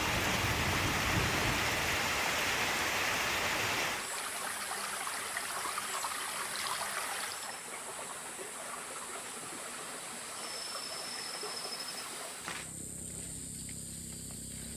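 Amazon rainforest field recordings cut together: rushing stream water for about the first four seconds, then quieter forest ambience with a steady high drone of insects, a thin steady whistle for a moment in the middle, and a low steady hum in the last couple of seconds.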